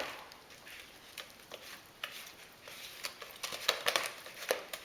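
Spoon stirring and scraping buttercream frosting in a bowl, with irregular clinks and taps against the bowl that grow busier in the second half.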